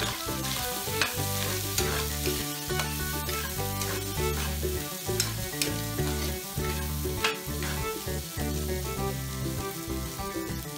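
Metal spatula stirring and scraping diced potatoes and meat frying in a wok, with a steady sizzle and irregular clanks of the spatula against the pan. Background music with a bass line plays underneath.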